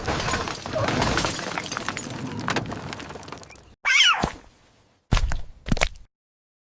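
A noisy crash and clatter that fades away over a few seconds. It is followed by a short high cry and two brief knocks.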